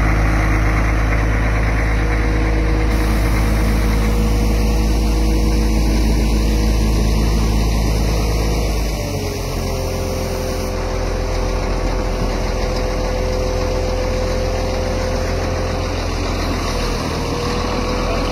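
Caterpillar 14G motor grader's diesel engine idling steadily. About halfway through, its tone shifts and the sound gets slightly quieter.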